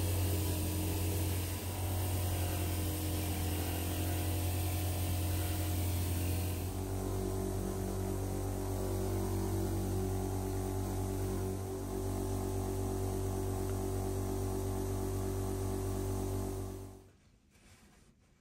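Mains-powered electric machine humming steadily, its tone shifting about seven seconds in, then switched off about seventeen seconds in.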